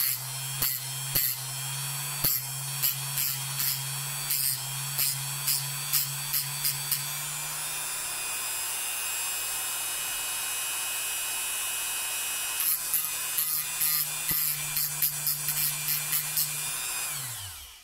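Handheld rotary tool running with a small disc, a short piece of code 55 model rail pressed against it in short grinding touches about twice a second to square off its end. There is a smooth stretch of steady running in the middle. Near the end the motor is switched off and winds down.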